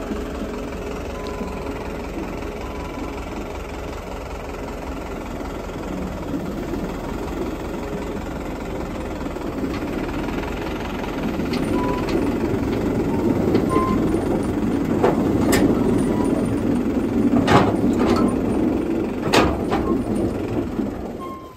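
A tractor engine runs steadily while its hydraulic lift tips a trolley of potatoes. From about halfway the potatoes pour out and tumble onto the heap in a growing rumble. A few sharp knocks come near the end.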